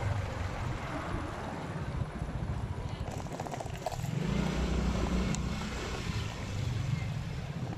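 Motorcycle engine running as it rides along, its note picking up about halfway through, with wind buffeting the microphone.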